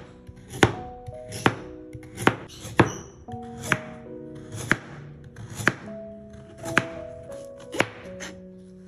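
Kitchen knife slicing raw carrot into rounds on a plastic cutting board, with a sharp knock as the blade hits the board about once a second. Near the end the blade cuts through baby corn.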